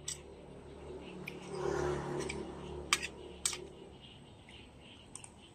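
A metal spoon and fork clink against a plate several times as food is scooped up, with a brief muffled noise about two seconds in.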